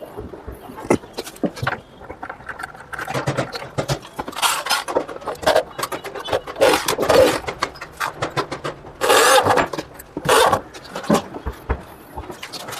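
Installation work on a bed's gas-lift hydraulic fitting: a run of clicks and knocks from metal hardware and tools, with several short scraping or whirring bursts about half a second to a second long.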